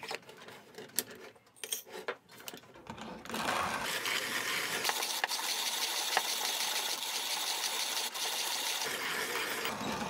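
Dienes (PeDe) 628 Mokka manual conical burr coffee grinder: a few knocks and clicks, then from about three seconds in the steady crunching and crackling of coffee beans being ground at its finest setting as the handle is cranked continuously.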